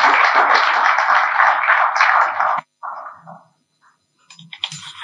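Audience applauding, the clapping cutting off abruptly about two and a half seconds in.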